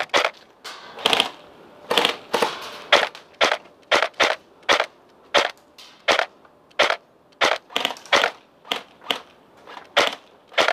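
Airsoft guns firing single shots, about two a second, unevenly spaced, with some in quick pairs.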